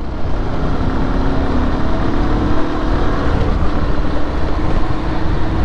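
Motorcycle engine running at a steady note while riding, under heavy wind rumble on the microphone; the engine pitch rises slightly about two seconds in.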